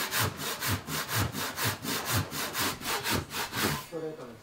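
Japanese ryoba pull saw rip-cutting a wooden block with its rip-tooth (tatebiki) side, in quick even strokes of about five a second, stopping about four seconds in. This side of the saw has been cutting crooked, curving off the line, and has not yet been sharpened.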